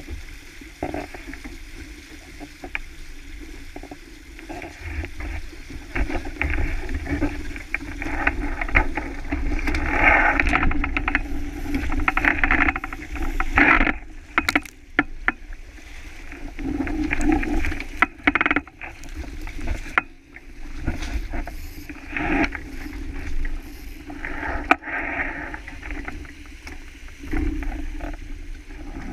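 Wind on the microphone and water rushing past the hull of a sailboat under way, a low rumble that swells and fades in gusts. Several sharp slaps land in the middle part.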